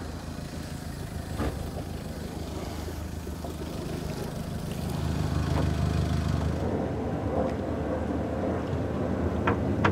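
Boat outboard motor idling steadily as it warms up after a start, a little louder about halfway through, with a couple of light clicks near the end.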